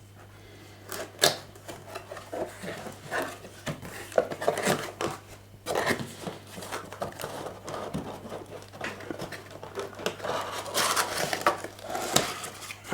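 A cardboard box being opened by hand and its cardboard packing handled, with irregular rustles, scrapes and sharp knocks.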